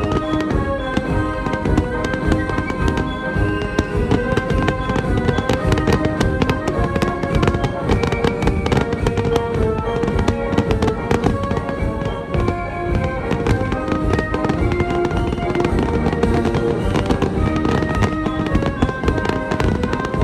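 Fireworks going off in a dense, near-continuous barrage of bangs and crackles, over music playing along with the show.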